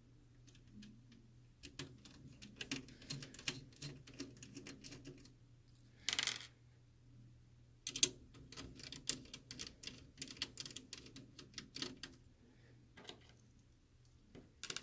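Phillips screwdriver backing small screws out of a laptop's USB port board: faint, irregular clicks and ticks of the driver in the screw heads and small metal screws being handled, with a brief scrape about six seconds in.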